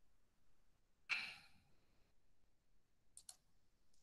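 Mostly near silence, with a short breathy exhale about a second in and a quick double click of a computer mouse near the end.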